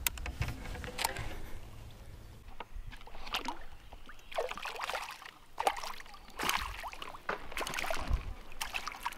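A hooked crappie thrashing and splashing at the water's surface as it is brought in, in a few separate splashes, with several sharp clicks and knocks in between.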